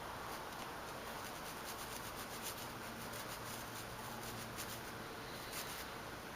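Razor knife blade scraping old grease and dirt out of a motorcycle start-button switch housing: a run of faint, quick scratches.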